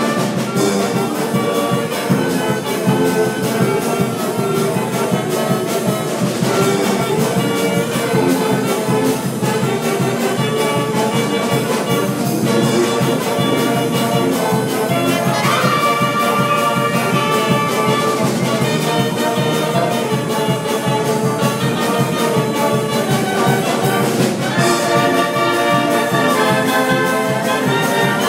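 A wind band of saxophones, clarinets, trumpets and sousaphones playing a tune together, live and without a break.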